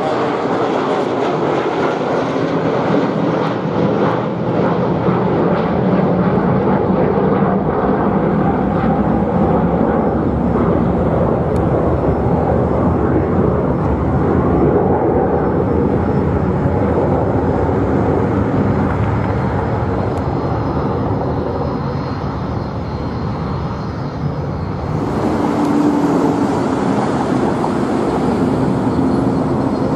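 Jet engines of a McDonnell Douglas MD-80-family twinjet at takeoff power as it climbs away: a loud, steady roar. About 25 s in, a cut brings in another MD-80-family jet on its takeoff roll, a roar with a steady hum.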